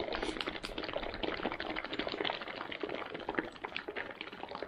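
Water and freeze-dried smoothie powder sloshing inside a plastic stand-up pouch as it is shaken and worked by hand to mix them, with a rapid, irregular crinkle of the pouch.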